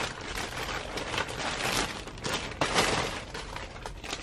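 Glossy black plastic shopping bag crinkling and rustling as it is handled and opened, an irregular run of crackles.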